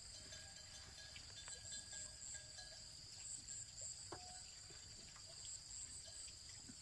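Faint, steady high-pitched chirping of insects such as crickets, a continuous trill that pulses in places.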